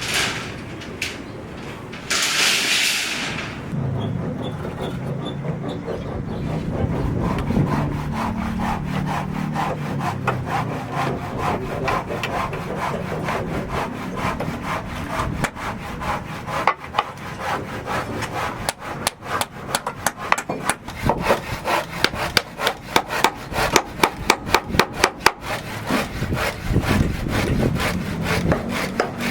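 Repeated rasping strokes, like wood being sawn by hand. In the second half the strokes turn quicker and sharper.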